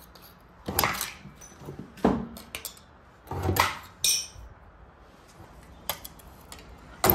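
Century-old hand-lever metal shear cutting sheet metal in several bites: a series of sharp metallic crunches and clanks, about four loud ones, with a brief high metallic ring near the middle as the cut sheet rattles.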